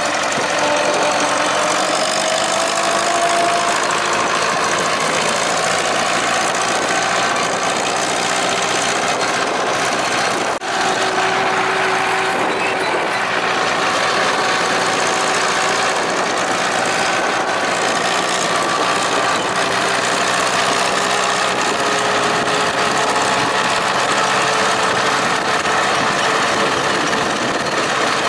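Ursus tractor's four-cylinder diesel engine running steadily while towing two wagons of logs along a road. Its pitch rises slightly in the first few seconds, and there is a brief drop in loudness about ten seconds in.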